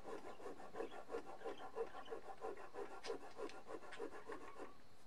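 A small flat file rasping back and forth on a basswood bass-guitar body's carved edge, in short quick strokes about four a second, smoothing out an uneven carve.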